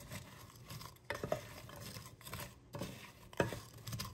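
Wooden spoon stirring hard frozen strawberry pieces and sugar in a nonstick saucepan: continuous scraping and shuffling, with several sharper knocks of fruit and spoon against the pot.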